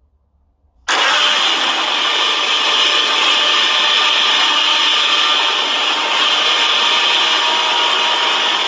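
Godzilla's roar sound effect from the 2014 Legendary film: a loud, harsh roar that starts suddenly about a second in and holds steadily.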